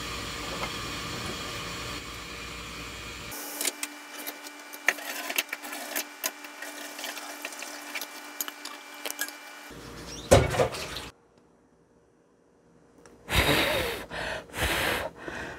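Kitchen sounds of cooking instant noodles. First, water runs from a tap for about three seconds. Then a steady hum with scattered clicks and clatter, a brief louder sound about ten seconds in, and after a short silence, a few bursts of hissing noise.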